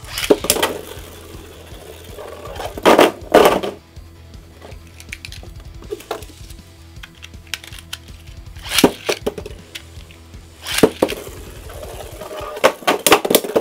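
Spinning Beyblade tops clashing in a plastic stadium: several clusters of sharp clacks and rattles, the loudest around three seconds in and near the end, over background music.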